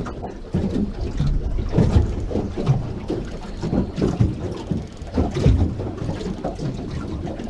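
Wind buffeting the microphone and water slapping against the hull of a small boat, in irregular low gusts and knocks about once or twice a second.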